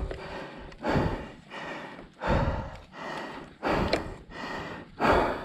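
A mountain biker breathing hard: four loud, gasping breaths, about one every second and a half.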